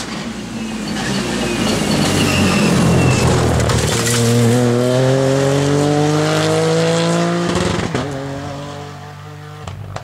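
Ford Fiesta Rally4 rally car with a turbocharged three-cylinder engine, approaching at full speed and passing close by. Its engine note then climbs steadily as it accelerates away, breaks briefly about eight seconds in, and fades.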